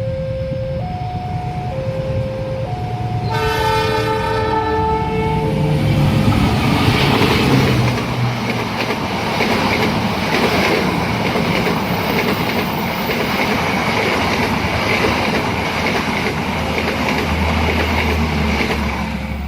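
A level-crossing warning alarm alternates between two tones, then a train horn sounds a chord for about two seconds, starting about three seconds in. A passing train follows: locomotive and carriages running fast over the rails with clattering wheels, loud and steady to the end.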